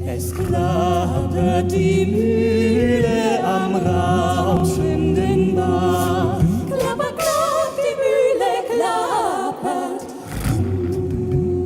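A cappella vocal group singing: low voices hold steady drone notes while a lead voice sings winding, sliding melodic runs above them. The drone breaks off briefly near the end and comes back in.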